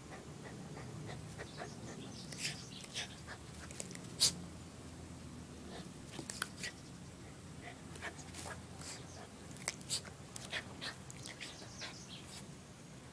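Toy poodle pouncing and snapping at an insect in the grass: scattered short, sharp sounds at an irregular pace, the sharpest about four seconds in.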